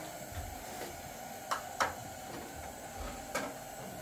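Three short, sharp knocks: two close together about a second and a half in, and one more near the end, over a quiet steady room background.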